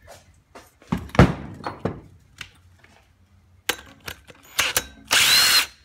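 A series of sharp metal knocks and clanks from tools being worked on an outboard's flywheel, the loudest about a second in, followed near the end by a short loud scraping rasp.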